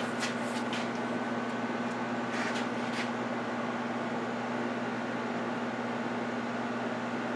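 Steady room background hum with a few fixed tones, like a fan or air-conditioning running. A few faint paper rustles and clicks in the first three seconds as a small old paper booklet is handled.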